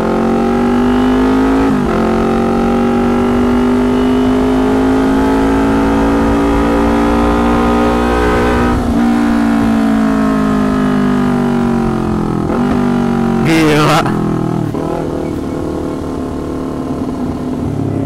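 Kawasaki Ninja 250 parallel-twin engine running through a very loud custom can exhaust: it rises in pitch, changes gear about two seconds in and again about nine seconds in, then eases off so the note falls and quietens toward the end. A short loud blast of noise comes a little past the middle.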